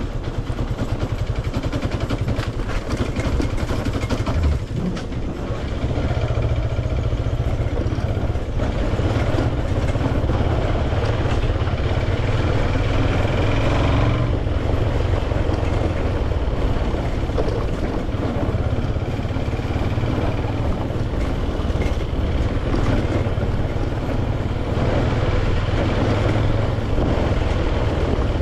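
Motorcycle engine running as the bike is ridden along a rough lane, with road and wind noise; it gets louder about five seconds in and then holds steady.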